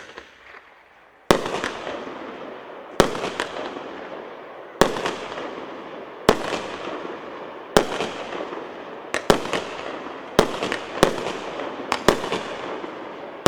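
A 138-shot, 1.2-inch consumer firework battery (cake) firing: loud sharp shots about every second and a half, each followed by a smaller pop and a fading crackle. The shots come closer together near the end.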